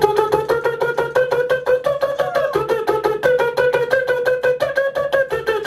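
Human beatboxing into a handheld microphone: a held, steady pitched note sung or hummed against fast percussive clicks and hits at about eight a second, the note bending briefly about two and a half seconds in.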